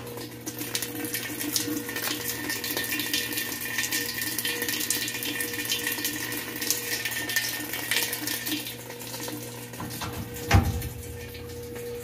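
Water pouring from the inlet into the tub of a Maytag top-load washing machine as it fills, a sign that the repaired water inlet valve is letting water in. Near the end comes one loud thump as the lid is shut.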